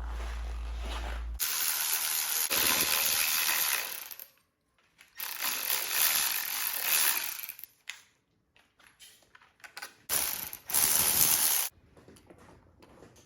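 Hand ratchet clicking on motorcycle fasteners in three spells of a couple of seconds each, with short pauses between.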